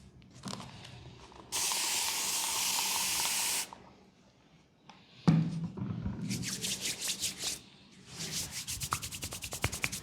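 A pain-relief aerosol spray hissing in one steady burst of about two seconds. A few seconds later, hands rub and strike the skin of a leg, ending in a fast, even rhythm of short massage strokes.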